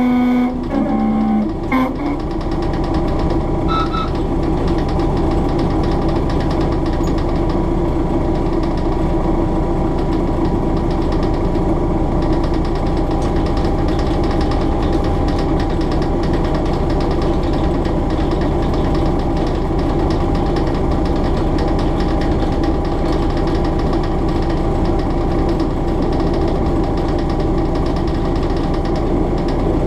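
Hastings DEMU motor coach's English Electric four-cylinder diesel engine running under power, heard from inside the driving cab: a steady, rhythmic thumping with a constant faint whine above it. A loud pitched tone sounds in the first two seconds and cuts out twice before stopping.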